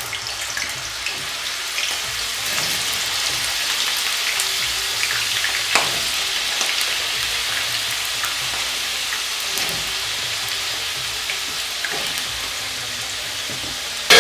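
Diced potatoes frying in hot oil: a steady sizzling hiss with a few sharp pops.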